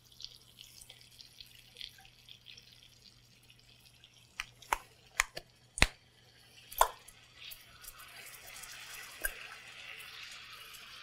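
Halibut fillets sizzling in butter in a frying pan, with several sharp clicks around the middle. In the last few seconds a pepper mill is ground over the pan, and a denser rasping hiss builds.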